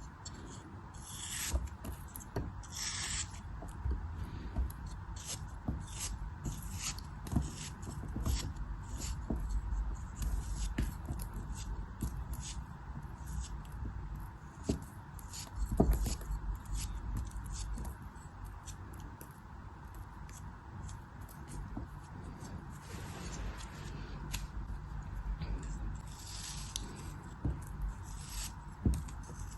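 A blade cutting and scraping through a soft, crumbly crafting material, with crisp, crunchy strokes at an irregular pace of roughly one or two a second.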